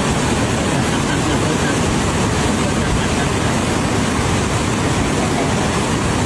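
Steady, loud rushing noise without pauses or distinct events, like wind or running water.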